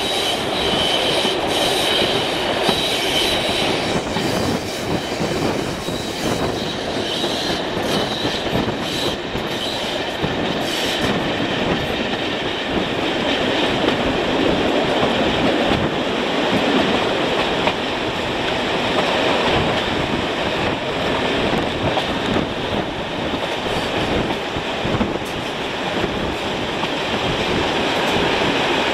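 Diesel-hauled passenger train running along the line, heard from an open coach window: a steady rumble and clatter of wheels on the track.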